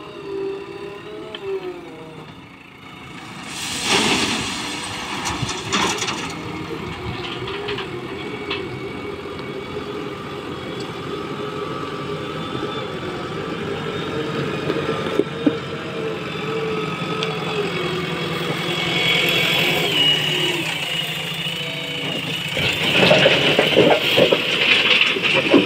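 JCB backhoe loader's diesel engine running, its pitch rising and falling as it works, with two bursts of clattering ballast stones about four and six seconds in, and a louder clatter of stones near the end as the bucket digs into the ballast pile.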